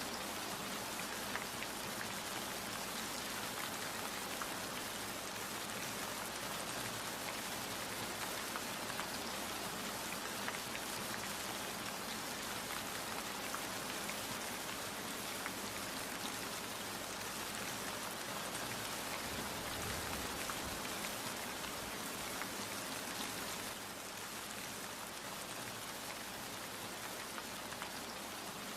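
Steady rain falling and pattering on surfaces, a dense even hiss full of small drop ticks, easing slightly near the end.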